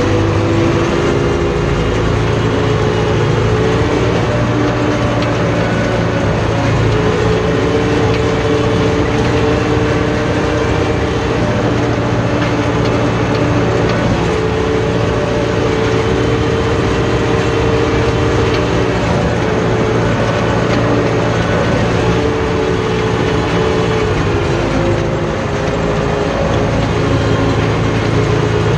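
Farm tractor's engine running steadily under load, heard from inside the cab, while pulling a row hiller along the crop rows.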